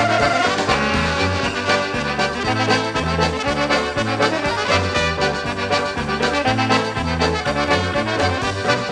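Polka band recording: an accordion plays the melody with brass, over a steady alternating bass beat.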